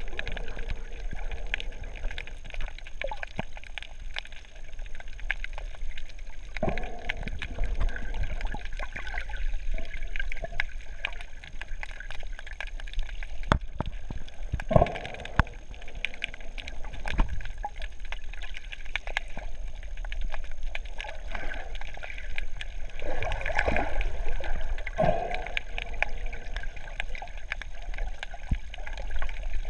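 Underwater sound through a GoPro's waterproof housing while diving: a steady muffled rumble with many small clicks, and several louder gurgling bubble bursts, most of them in the second half.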